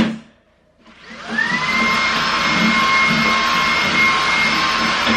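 A short knock right at the start, then a cordless stick vacuum cleaner switched on about a second in: its motor whine rises quickly to speed and then runs steadily as it vacuums the plastic floor tray of a wire dog crate.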